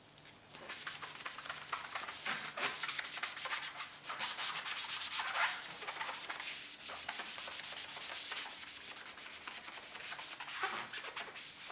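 Foam applicator sponge rubbing over a wheel in quick back-and-forth strokes, spreading a ceramic coating, with a brief high squeak just after the start.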